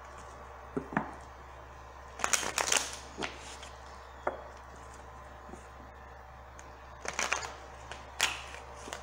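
A tarot deck being shuffled overhand between the hands: sharp card taps and flurries of card-on-card slapping and rustling, loudest at about two to three seconds in and again around seven seconds, over a steady low hum.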